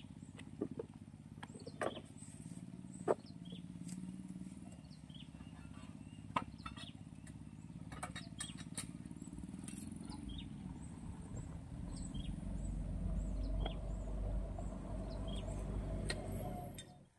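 Engine of a portable soil-boring drill rig running steadily, with a few sharp knocks over it. Its low rumble grows stronger in the last few seconds, then cuts off suddenly near the end.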